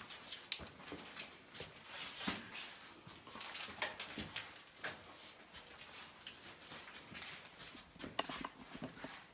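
Irregular footsteps and scuffs crunching on a debris-strewn floor, with scattered clicks and knocks.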